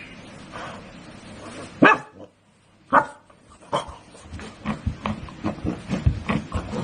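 French bulldog barking: single sharp barks about two and three seconds in, then a quick run of shorter barks and scuffles as it bounces about.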